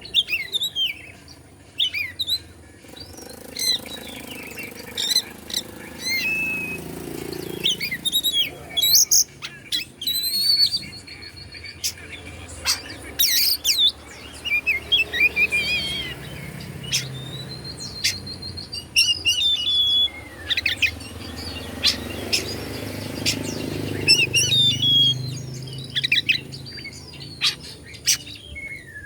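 Oriental magpie-robin (kacer) singing a long, varied song of quick chirps, trills and a few held whistles, broken by short pauses.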